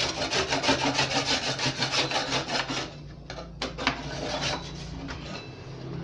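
Scrub brush scraping dry droppings off a canary cage's plywood bottom tray: quick back-and-forth strokes for about three seconds, then slower, scattered strokes.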